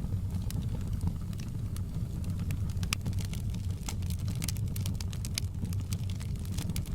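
Wood fire burning in a fireplace: a steady low rumble of flames with frequent small crackles and pops from the logs, one sharper pop about three seconds in.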